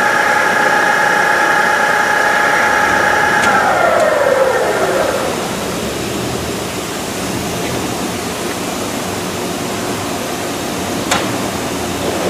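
Colton single-arm sigma-blade paste mixer's electric drive running with a steady whine, then shutting off about three and a half seconds in as its 15-second timer runs out; the whine falls in pitch as the drive coasts to a stop, leaving a steady hiss, with a single click near the end.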